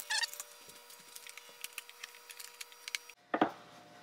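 Faint, scattered clicks and rattles of a dirt bike silencer's metal mounting hardware being unbolted with a cordless drill/driver and worked loose by hand, with a sharper knock near the end.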